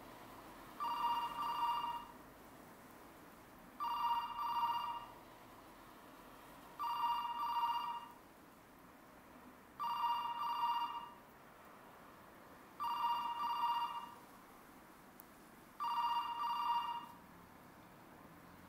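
Telephone ringing in the British double-ring pattern: six rings, each a quick pair of trills, repeating about every three seconds.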